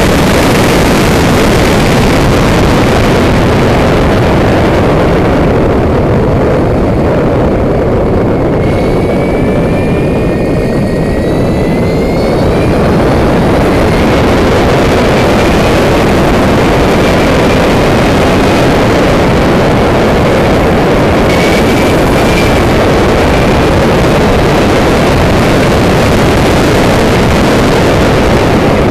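Heavy wind noise rushing over the microphone of an onboard camera on a Lightning electric race motorcycle at speed. A thin high electric-motor whine climbs in pitch as the bike accelerates, clearest several seconds in and again more faintly past the middle.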